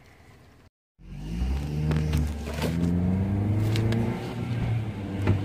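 Car engine and road noise heard from inside the cabin while driving, the engine's pitch rising, dropping back and rising again. It starts about a second in, after a faint moment and a short cut to silence.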